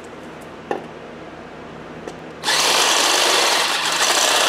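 Cordless drill starting about two and a half seconds in and running steadily at speed, boring a hole through a coilover's black top mount part. A single light click comes earlier.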